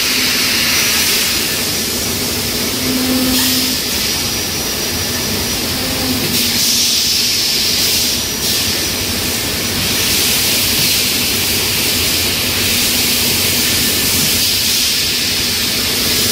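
Balloon-dipping machinery running: electric motors driving V-belts and pulleys, a loud steady mechanical noise with a strong hiss over a low rumble.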